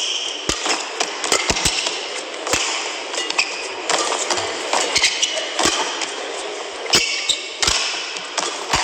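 Badminton rally: sharp racket strikes on the shuttlecock at irregular intervals, with brief shoe squeaks on the court mat, over steady arena crowd noise.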